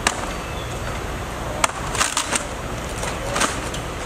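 A few sharp knocks and cracks from a firefighter working at a fire-damaged window frame from a ladder: one right at the start, a quick cluster in the middle, and one more about three and a half seconds in, over a steady low rumble.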